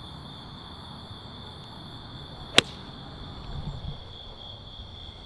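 A golf club strikes a glow golf ball once, a single sharp crack about halfway through, over a steady high insect trill.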